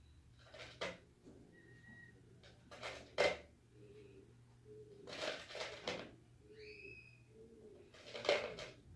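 Small pebbles rattling and clinking in a clear plastic jar as they are tipped and picked out, in about four short bursts, loudest about three seconds in and near the end. Faint bird calls sound in the background between them.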